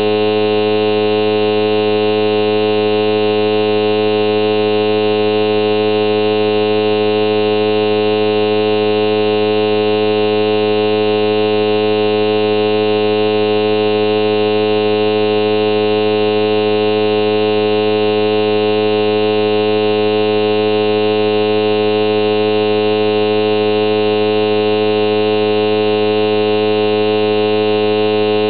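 A loud, steady electronic buzz made of several fixed tones, with a shrill high tone on top, that does not change at all: a stuck, looping audio glitch.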